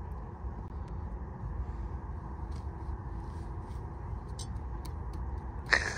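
A steady low rumble, with faint light rustles and clicks of a plastic bag being handled, and one louder sharp rustle near the end.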